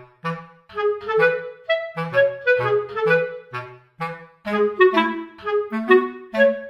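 Background music: a light, bouncy tune of short, detached notes over a low bass line.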